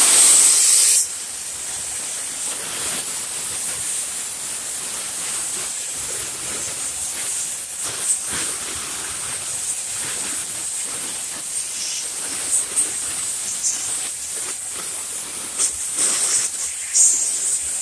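Steady hissing of a tool blowing on the ice in a freezer's frozen defrost drain to thaw it. It comes on very loud, drops to a steadier level about a second in, and is marked by a few short sharp sounds near the end.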